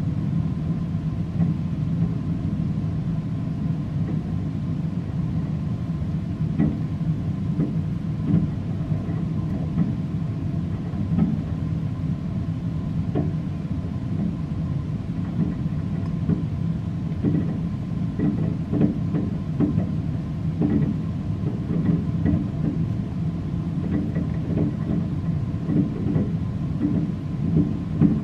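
Distant fireworks display: many scattered pops and bangs, more frequent in the second half, over a steady low rumble.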